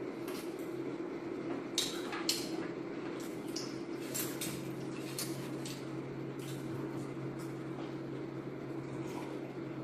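Crispy fried chicken being bitten and chewed close to the microphone: irregular sharp crunches and mouth clicks, thinning out after about seven seconds, over a steady low hum.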